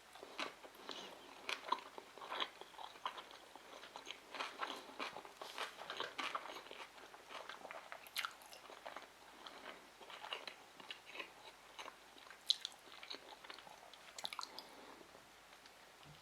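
Close-miked chewing and biting of sushi rolls: irregular small wet clicks and crunches, with a few sharper louder ones.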